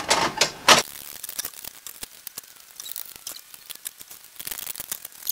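Clicks and knocks of 3D-printed plastic clock parts as the dial is pressed onto the movement, then a run of faint, irregular small clicks.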